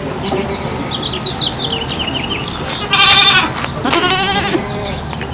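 Goat bleating: two loud, wavering bleats in quick succession just past the middle.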